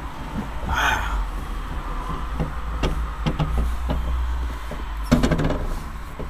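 Scattered clicks and knocks of a hand moving over handles and fittings inside a Bobcat skid-steer's cab, over a low handling rumble on the microphone, with a scrape about a second in and a quick cluster of clicks a little after five seconds.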